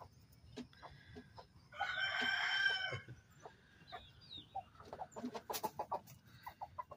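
A gamefowl rooster crows once, about two seconds in, for a little over a second. Scattered short clucks and clicks from the chickens in the pen follow.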